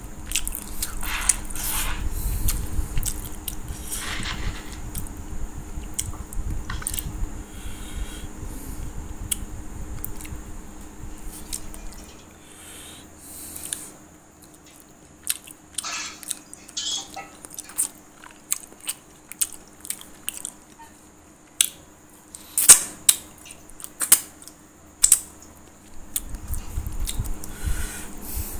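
A person chewing and biting food close to the microphone, with many sharp wet mouth clicks and smacks, densest in the second half. A low rumble runs under the first twelve seconds or so and comes back near the end.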